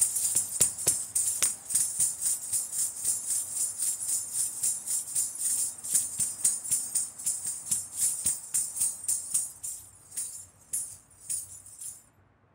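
A Bharatanatyam dancer's ankle bells (salangai) jingle in a fast, even rhythm with each strike of her feet. The strikes thin out after about ten seconds and stop just before the end.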